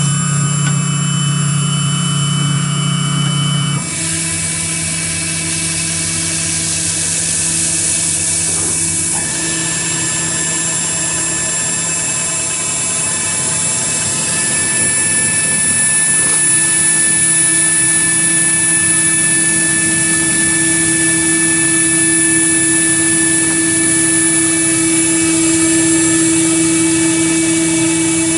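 AKM6090 CNC router running while cutting foam: the steady whine of the spindle together with several held tones from the machine's motors. The mix of tones shifts about four seconds in.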